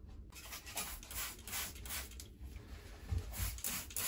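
Trigger spray bottle squirting cleaner onto plastic parts in a rapid series of short sprays, about three a second.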